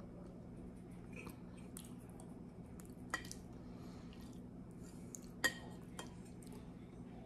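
Metal spoon scraping and clinking against a glass casserole dish, with a few sharp clinks, the loudest about three and five and a half seconds in, over a low steady hum.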